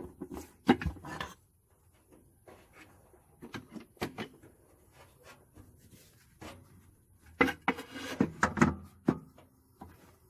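Intermittent clanks, knocks and rattles of hand tools and metal engine parts being handled while a small-block Chevy V8's intake manifold is unbolted, with busier clusters near the start and again about three quarters of the way through.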